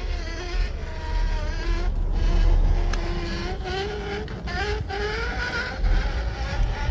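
Traxxas TRX-6 6x6 RC truck driving, its electric motor whining with a pitch that rises and falls with the throttle, over a steady low rumble.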